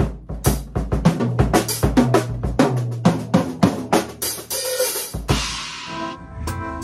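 Drum kit played in a fast run of strikes on bass drum, snare and cymbals over low held notes, ending in a cymbal crash a little over five seconds in that rings on. Steady pitched notes from another instrument come in near the end.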